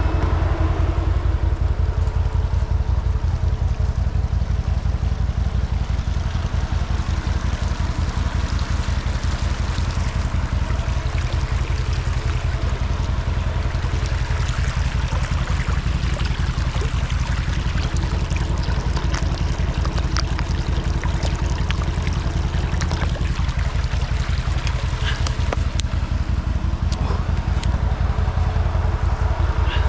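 An ODES 650 ATV engine idling steadily, with a small shallow stream trickling over stones close by.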